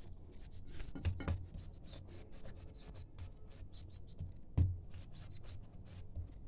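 Hands rolling and patting a log of fekkas biscuit dough on a countertop: soft, rapid rubbing and light slaps, with a few dull knocks, the loudest about four and a half seconds in.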